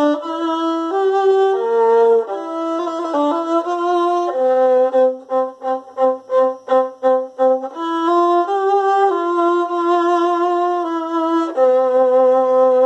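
Solo violin playing a slow melody, often sounding two notes an octave apart. About four seconds in comes a passage of short, repeated bow strokes on the octave, some three or four a second, then sustained notes again.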